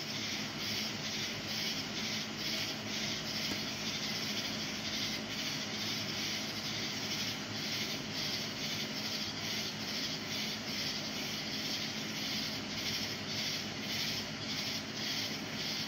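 Many distant fireworks going off at once across a city, heard as a steady hiss-like wash with no single bang standing out.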